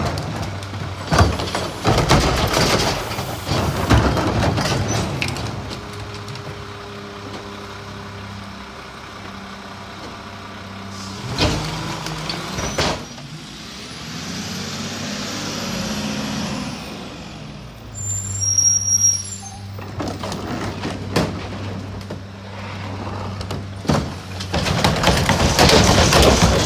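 Mack MRU garbage truck with a McNeilus rear-loader body running at the kerb, its engine humming steadily and rising as it pulls ahead to the next stop, with a brief brake hiss. Carts of trash clatter as they are tipped into the rear hopper, loudly in the first few seconds and again near the end.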